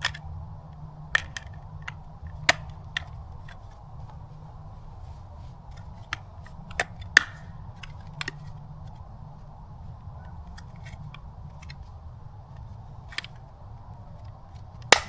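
Scattered clicks and knocks of small metal parts being handled as a wheel is fitted and pinned onto a wood chipper's axle, the sharpest click near the end, over a low steady hum.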